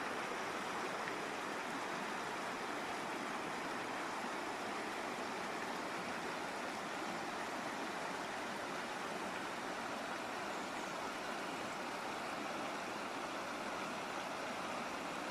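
Waterfall and river water rushing steadily, an even unbroken roar of falling and flowing water.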